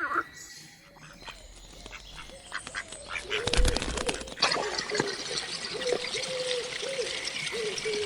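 Ducks on water: a sudden splash about three and a half seconds in, then a steady wash of water with a string of short, low calls repeating about twice a second.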